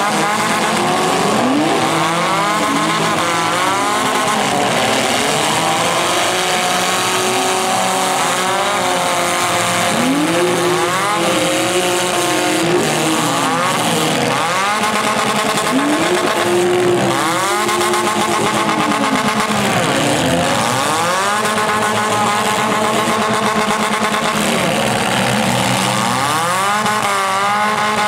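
Several demolition-derby car engines revving hard over and over, their pitches overlapping and sweeping up and down as the cars push against each other.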